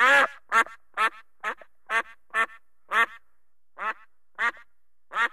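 A duck quacking: about ten short quacks in a loose series, roughly two a second, with a longer pause about three seconds in.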